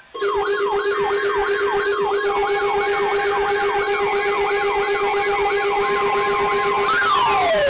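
Electronic siren: a fast yelp of rising-and-falling sweeps, about three a second, over a steady low tone. Near the end it switches to a slower wail.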